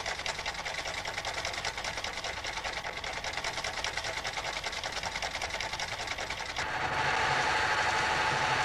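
Cam-controlled mechanical sewing machine running at speed, stitching a fancy stitch with a rapid, even rhythm. About two-thirds of the way in, a louder electronic sewing machine takes over with a steadier sound.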